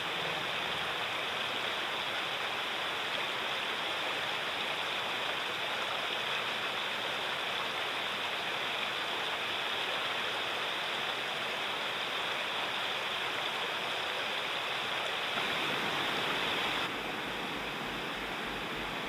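Shallow river flowing over a stony bed: a steady rush of running water, a little quieter near the end.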